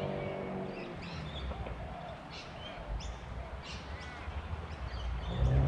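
Wild birds calling: a series of short, sharp, high calls, each sweeping steeply down in pitch, repeated every half-second to a second, over a faint low rumble.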